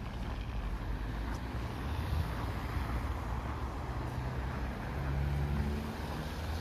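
Road traffic passing: a steady rumble of car engines and tyres, with the hum of one vehicle standing out a little louder around four to six seconds in.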